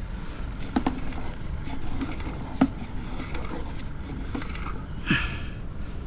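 Low steady rumble, with a few short sharp knocks and clicks scattered through.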